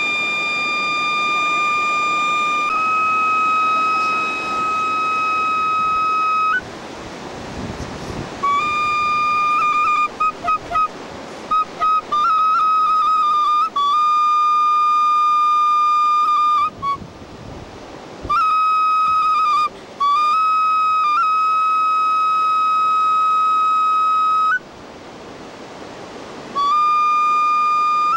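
Solo flute playing long held high notes that stay near one pitch, broken by runs of quick short notes. It stops briefly three times, and in those pauses a steady rushing noise is left.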